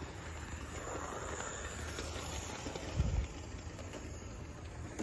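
Electric model train running on its track: a steady low motor hum with rolling wheel noise, and a low thump about three seconds in.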